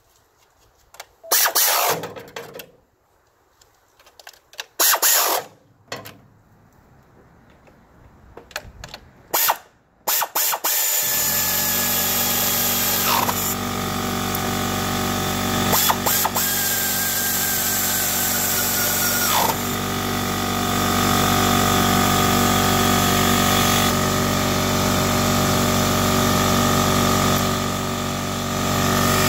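A few short whirring bursts from a cordless ratchet driving fasteners on the engine top, with quiet between them. About ten seconds in, a loud continuous sound with held tones that shift every few seconds starts and runs on.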